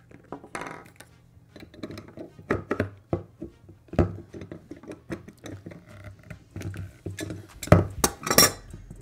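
Scattered clicks, clinks and knocks of pump parts and fittings being handled and pushed into place on a Vacuflush vacuum generator pump, with two louder knocks near the end.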